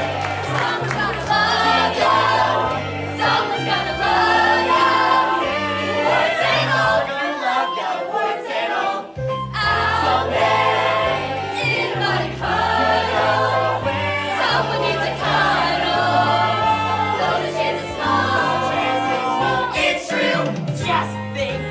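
A group of voices singing together over a musical accompaniment with a moving bass line, briefly dropping out about nine seconds in.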